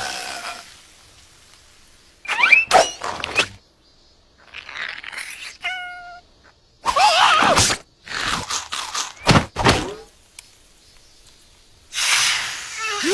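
Cartoon character vocal noises and comic sound effects in short bursts: squeaky cries that slide up and down in pitch, a short stepped squeak about five seconds in, and thuds between about eight and ten seconds in.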